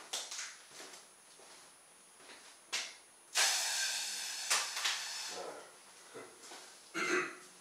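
Air rushing out of the balloon through the drinking-straw jets of a home-made balloon-powered helicopter: a sudden hiss about three seconds in, strong for about a second and then fading over the next two as the balloon empties, with a sharp click partway through.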